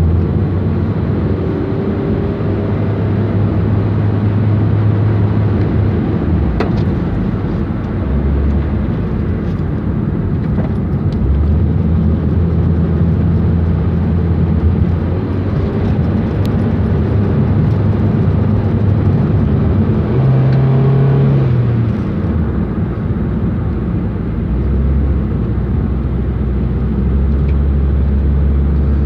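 Honda car's engine and road noise heard from inside the cabin while driving. The engine note drops away and picks up again a few times, rising briefly before falling once more.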